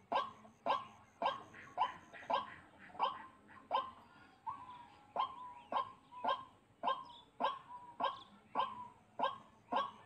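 White-breasted waterhen calling: a harsh, clipped note repeated steadily about every 0.6 seconds, with a brief break near the middle.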